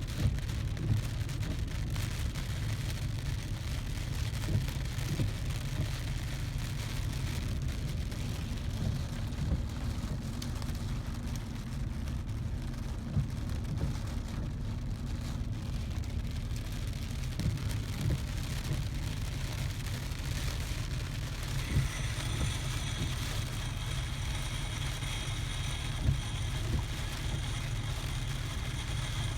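Hurricane wind buffeting the microphone in a heavy, gusty low rumble, with rain. About three-quarters of the way through, a faint steady high whine joins.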